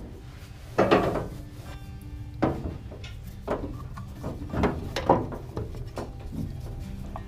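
Rubber power steering hose being handled and held against the pump and its metal fittings: a series of short knocks and rubbing sounds, the loudest about a second in and another cluster around five seconds in.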